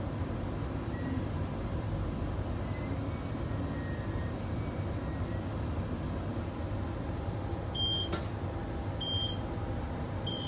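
Steady low hum and rumble inside a Queensland Rail New Generation Rollingstock train carriage. From about eight seconds in, three short high electronic beeps sound about a second apart, with a sharp click at the first.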